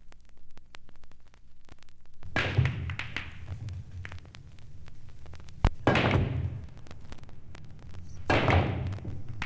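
Three heavy thuds roughly three seconds apart, each with a short rushing noise that dies away, over a faint crackle of small clicks.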